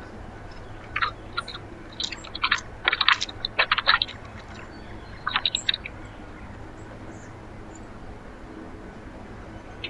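Seed being cracked and pecked at a backyard bird feeder: bursts of sharp clicking and crunching, in clusters about one second in, from two to four seconds, and again around five seconds in.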